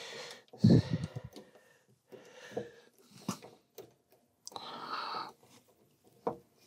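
Handling noise from multimeter test probes being held and worked in a wall socket: scattered short clicks and scrapes, with a louder low bump about a second in. Close breathing is heard in between.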